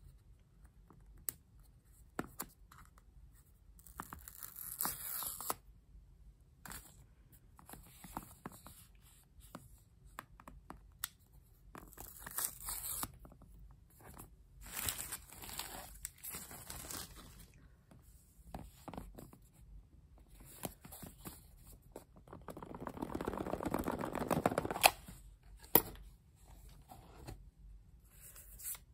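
Samsung Galaxy S23 retail box being unsealed and opened by hand: fingernails scratching at the sealing tabs, paper tear strips ripped off and cardboard sliding, heard as scattered clicks and taps between several short tearing and rustling bursts, the longest and loudest about three quarters of the way through.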